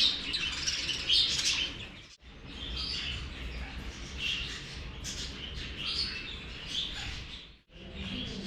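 Many birds chirping and calling over one another in a busy aviary chorus, broken twice by brief sudden dropouts, about two seconds in and near the end.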